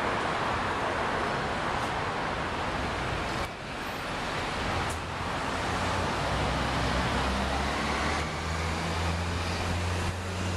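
City street traffic: a steady wash of passing vehicles. About halfway through a low engine rumble comes in and grows stronger, as of a large vehicle idling or passing close by.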